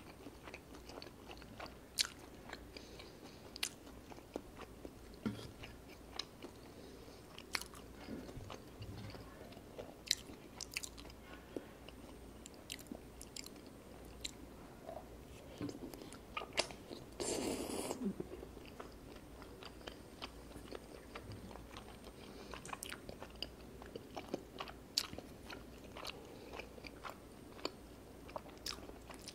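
Close-miked eating sounds: chewing of chewy rice cakes and ramen noodles in spicy tteokbokki sauce, with many short sharp wet mouth clicks throughout. Past the middle, one louder noisy stretch of about a second stands out.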